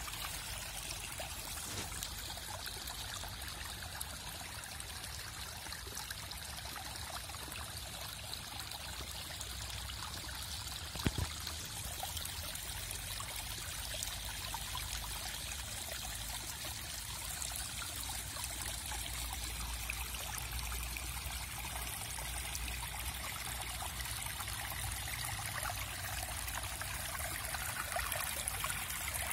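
Rainwater running and trickling steadily after heavy rain, with one sharp click about eleven seconds in.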